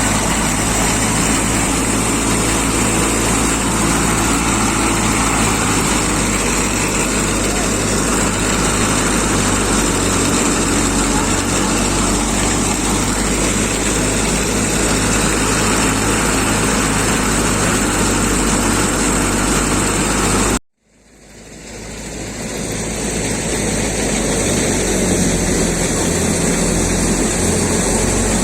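Tractor engine running steadily under load, driving a wheat thresher, with the machine's broad rushing noise over the engine's drone. About two-thirds of the way through, the sound cuts out abruptly and fades back up over a couple of seconds.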